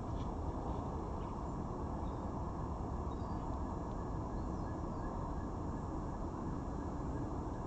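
Steady outdoor background rumble with a few faint, short, high bird chirps.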